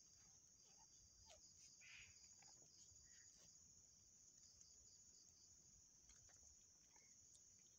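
Faint, steady high-pitched trilling of crickets, with a second insect pulsing just below it and a few soft short squeaks now and then.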